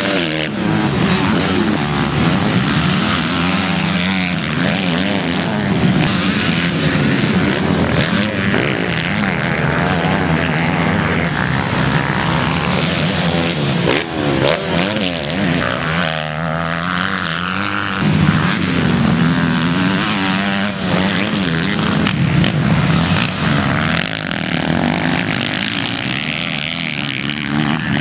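Motocross bike engines revving hard and changing pitch as they accelerate, shift and back off, with more than one bike running at once.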